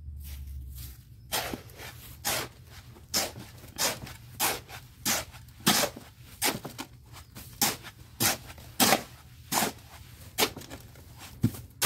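Hoe blade chopping and scraping through a sand-and-cement mix in a metal wheelbarrow, a rasping stroke about every two-thirds of a second, starting about a second in.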